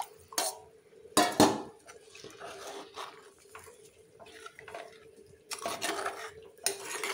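Metal cookware and utensils clinking and knocking: two sharp knocks close together about a second in, then lighter clinks and scraping, with a few more knocks near the end. A faint steady hum sits underneath.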